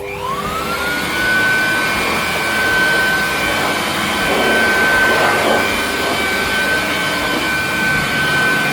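Electric 2-in-1 air blower and vacuum cleaner switched on: its motor whine rises over about a second to a steady high pitch and keeps running with a rush of air.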